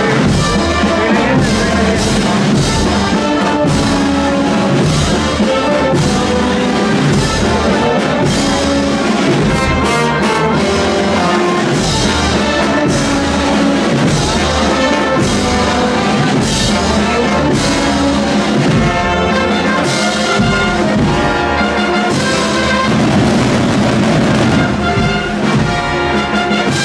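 Brass and percussion procession band playing a march: brass melody over regular drum strokes, loud and unbroken.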